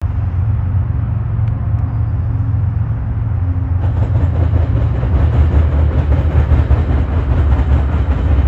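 Diesel locomotives of a Union Pacific stack train, a GE ES44AC (AC45CCTE) leading and an EMD SD70ACe trailing, rumbling as they approach and pass. About four seconds in, the sound turns louder and brighter as the lead unit comes by.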